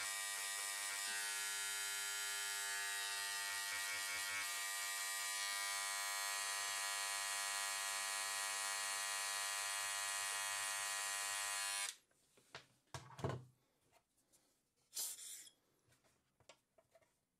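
Vibrating needle scribe buzzing steadily as its tip chips rock matrix away from around a trilobite fossil. It cuts off abruptly about twelve seconds in, followed by a few light knocks.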